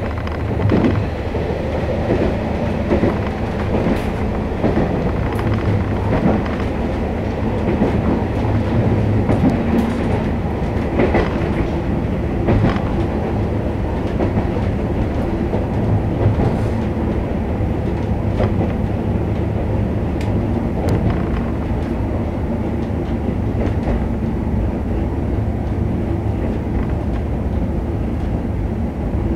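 KiHa 48 diesel railcar running along the line: a steady engine drone with wheel and track noise and occasional clicks from the rails, heard from inside the car.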